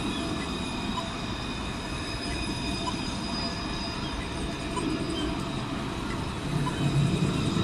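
Luas light-rail tram (Alstom Citadis) passing close by on a curve, its wheels squealing in steady high tones over a low rumble of the running gear. The rumble grows louder near the end.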